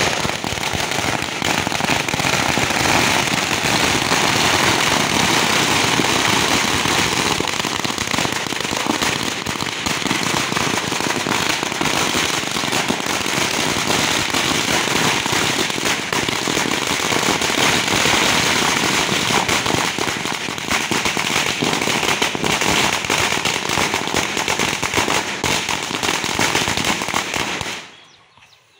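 A 5000-wala string of firecrackers going off as one unbroken rattle of rapid bangs, cutting off suddenly near the end.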